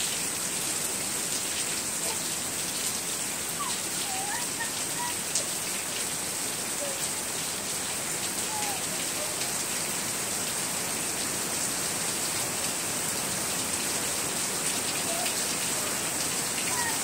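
Heavy rain falling steadily on grass, puddles and concrete: a continuous, even hiss.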